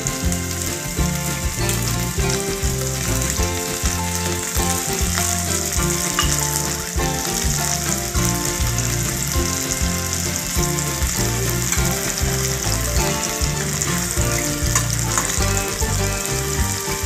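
Sliced onions sizzling steadily in hot mustard oil in a kadai, with a spatula stirring them near the end. Background music plays underneath.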